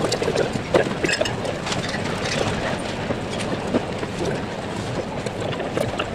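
Airport terminal background noise: a steady rumbling murmur with scattered clicks and knocks.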